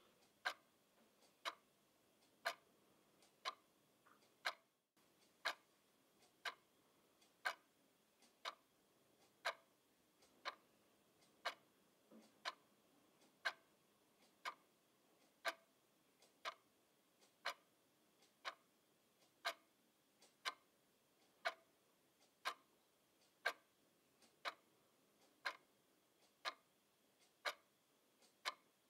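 Quartz twin-bell alarm clock ticking steadily: sharp, even ticks, the loudest about once a second, over near silence. The ticking cuts out for an instant just before five seconds in.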